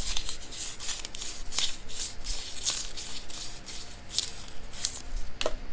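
Quick irregular scraping strokes and small metallic clicks as a lock part is worked by hand to smooth out a rough spot.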